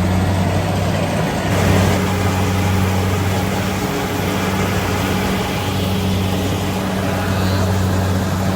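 Rice combine harvester engine running steadily: a constant low hum with a dense mechanical clatter over it, shifting briefly about one and a half seconds in.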